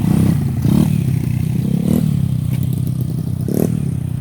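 Motorcycle engine running, its revs rising briefly three times as the throttle is blipped.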